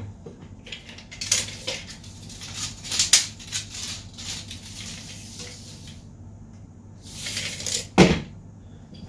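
Metal clinks and scrapes as the steel rotisserie frame's loosened telescoping arms are slid outward and handled, with a tape measure pulled out and set against the frame, ending in one sharp knock about eight seconds in.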